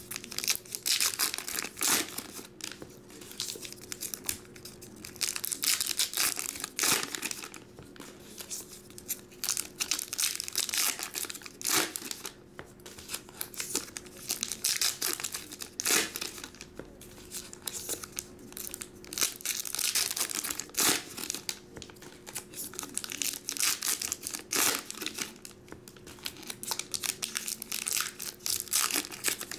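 2022 Topps Heritage baseball card pack wrappers crinkling and tearing open, in irregular crackling bursts that run on as one pack after another is handled.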